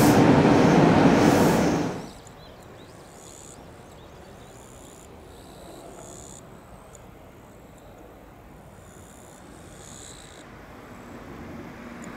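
Loud Meitetsu train running noise cuts off abruptly about two seconds in, leaving quiet outdoor background with scattered short high-pitched chirps. Near the end, a train's rumble builds as it approaches.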